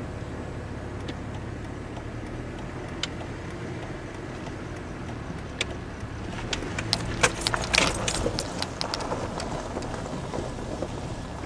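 Car running with a steady low rumble, with a cluster of light, irregular clicks and rattles from about six to nine seconds in.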